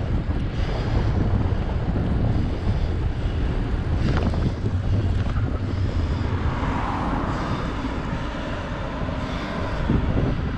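Wind buffeting the microphone, a heavy low rumble, with a brief sharp sound about four seconds in.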